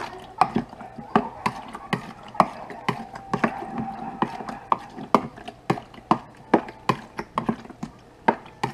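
A spoon repeatedly knocking and scraping against the sides of a mixing bowl as cubed raw fish is stirred in vinegar, in uneven clicks about two a second.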